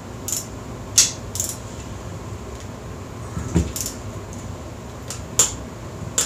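Torque wrench and socket working on a motorcycle engine's cylinder head bolts: about six sharp metallic clicks and clinks, irregularly spaced, as the bolts are tightened to 42 foot-pounds.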